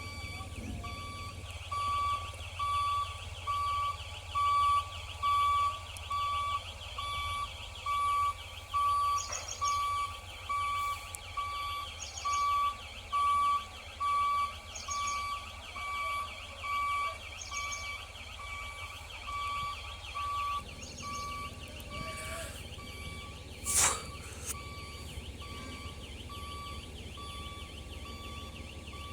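A heavy mobile crane's warning alarm beeping steadily over its running engine's low hum, with a single sharp knock near the end.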